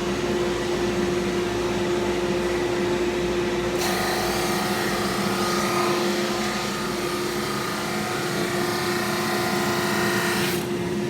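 Drum sander and dust collector running with a steady hum. About four seconds in, a board fed by the conveyor meets the sanding drum and a loud sanding hiss sets in for about seven seconds, cutting off abruptly as the board passes out.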